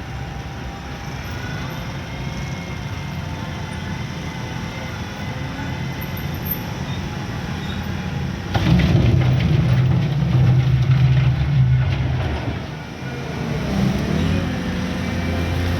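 Diesel engine of a heavy earthmoving machine running steadily, then revving up much louder about halfway through as it works. It eases off briefly and climbs again in pitch near the end.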